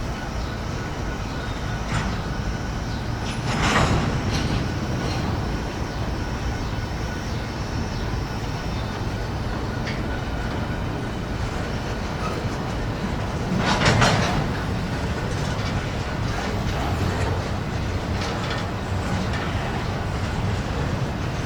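Freight train rolling past, its steel wheels rumbling and clacking over the rails, with louder surges about four seconds in and again around fourteen seconds.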